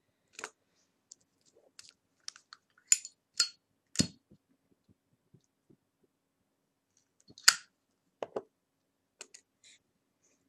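Irregular computer mouse and keyboard clicks, a dozen or so scattered short clicks, the sharpest about three, four and seven and a half seconds in.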